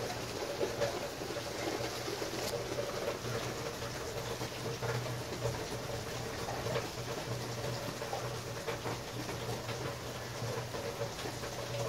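Steady rain falling during a thunderstorm, with scattered drips and splashes of water.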